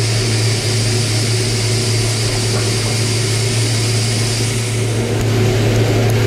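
Mazak HQR-250MSY multi-tasking CNC turning center running a machining cycle. It makes a steady low hum with a high whine and a constant hiss over it, and the whine fades out about four and a half seconds in.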